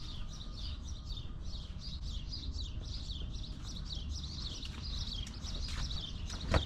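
Small birds chirping over and over over a low steady rumble, with one sharp click near the end.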